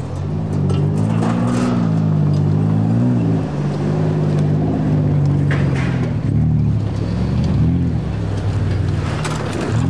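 Off-road 4x4's engine revving up and down repeatedly, its pitch rising and falling every second or two, with a few brief rushes of noise.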